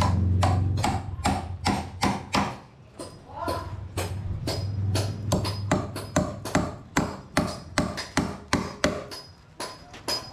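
Hammer driving 4-inch nails into a mahogany door frame: a long run of sharp knocks, roughly two to three blows a second. A low hum sounds under the first second and again around the middle.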